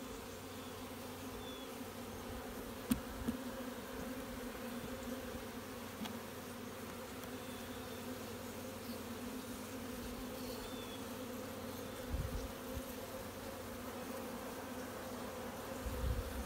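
Honeybees buzzing around an open hive box and frames of hatching brood, a steady hum. A sharp click about 3 s in and a few low thumps near the end.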